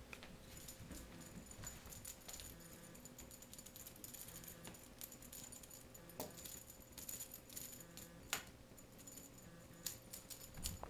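A cat's wand toy jingling and rattling faintly as it is waved and batted about, with a few sharp light clicks and taps.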